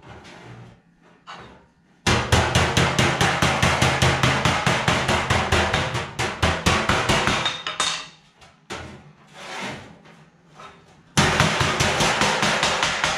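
Rapid hammer blows on sheet steel against a steel welding table, about six to seven strikes a second. They are used in forming a sheet-metal mounting bracket. The blows come in two loud runs, one starting about two seconds in and one near the end, with lighter, sparser taps between them.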